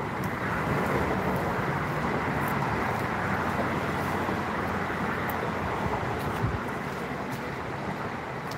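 Steady rush of road traffic passing, a little louder in the first few seconds and easing slightly near the end.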